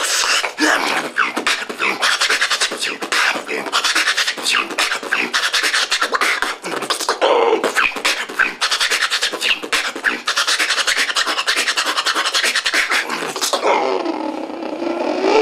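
Solo beatboxing: a fast, dense stream of percussive mouth sounds, with a wavering pitched vocal line about seven seconds in and again over the last two seconds, which cuts off abruptly.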